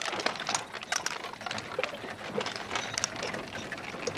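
Wooden spoked-wheel cart loaded with sacks being pushed along a dirt track: irregular wooden clicks, knocks and rattles from the wheels and frame.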